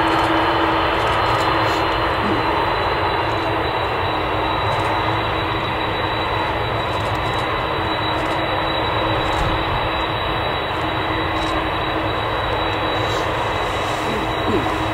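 Boeing 747-400's four jet engines running at taxi power as the jumbo taxis, a loud steady rush with a constant low hum and a constant high whine.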